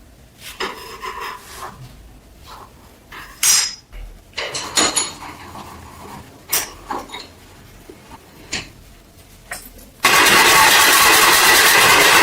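Scattered clicks, knocks and scrapes of parts being handled, then about ten seconds in a loud, steady machine noise starts abruptly and keeps running, like a power tool or air blast switched on.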